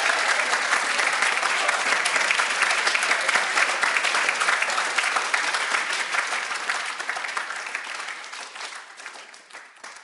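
Large crowd giving a standing ovation: dense applause from many hands clapping. It thins out and fades away over the last few seconds.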